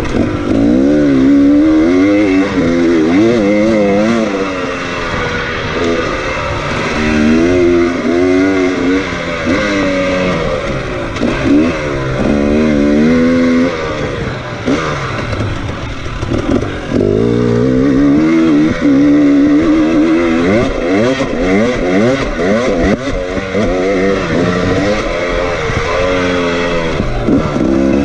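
KTM 300 two-stroke dirt bike engine heard from on board, revving up and down as the throttle is opened and closed, its pitch rising and falling every second or two.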